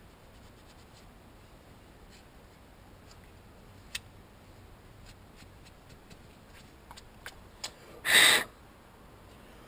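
Faint clicks of hands working on fittings, then, a little after 8 s, one loud half-second puff with a hollow hooting tone: a man blowing hard through a fuel line, which leaves him with a taste of fuel in his mouth.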